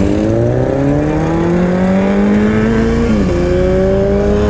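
Bajaj Avenger Street 160's single-cylinder engine accelerating, its pitch climbing steadily. The pitch drops sharply at a gear change about three seconds in, then climbs again in the next gear.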